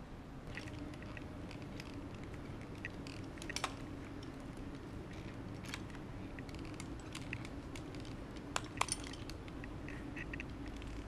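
Metal rope-access hardware, carabiners and a descender on the harness, clinking and clicking now and then as the gear shifts, over a steady low hum. Sharper clacks come about three and a half seconds in and twice in quick succession near nine seconds.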